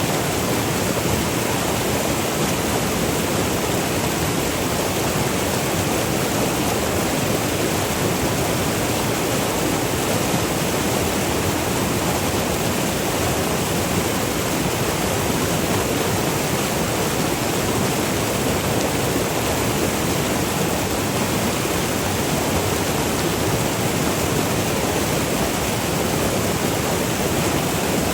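River water rushing over small falls and rapids: a steady, even rush of water with no breaks.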